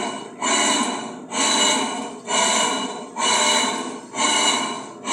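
Electrolux LT10B top-loading washing machine agitating, its motor running loudly in repeated strokes a little under a second apart, each starting suddenly and fading, with a steady whine running through them. The noise comes from the wrong motor having been fitted, as the repairer says.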